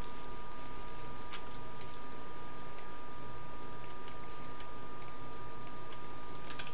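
Scattered light computer clicks from mouse and keyboard, irregular and a second or so apart, over a steady two-tone electrical whine and hiss from the recording setup.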